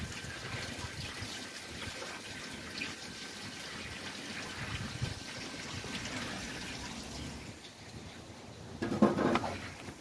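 Water running and trickling through a pond filter box, fed by the newly restarted pond pump. About nine seconds in, a brief louder rustle covers it.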